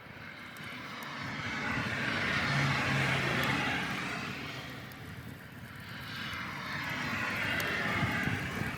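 Blizzard wind rushing in gusts, swelling twice and easing between them.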